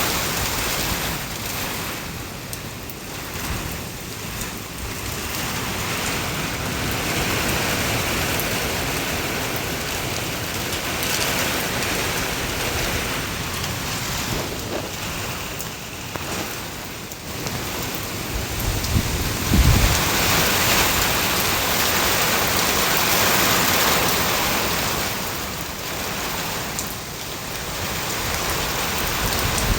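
Steady rain falling, growing heavier and easing again in slow waves, with a brief low rumble about two-thirds of the way through.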